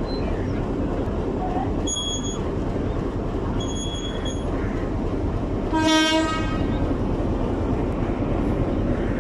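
Steady low rumble of an idling locomotive at close range. Two short high beeps come about two and four seconds in, and a brief, loud train horn blast sounds about six seconds in.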